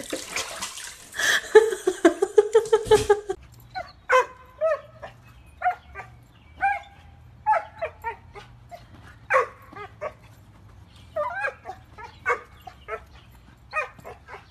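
Dog barking and yipping: a string of short, separate barks, one or two a second, after a louder jumble of noise in the first three seconds.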